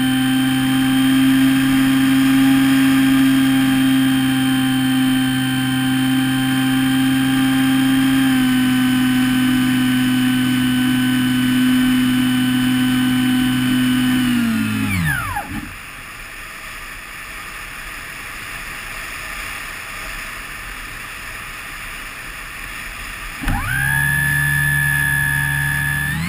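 Electric motor and propeller of an EasyStar 2 RC plane, heard from its onboard camera, running at a steady pitch. About fifteen seconds in, the motor winds down and stops, leaving only air rushing past the gliding plane; near the end it spins up again with a rising whine.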